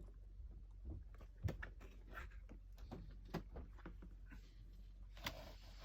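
Faint, scattered small clicks and taps of action-figure packaging being handled.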